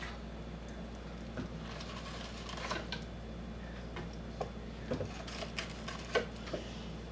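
Fillet knife cutting and scraping along a fish's bones and skin, a run of small irregular clicks and scrapes over a steady low hum.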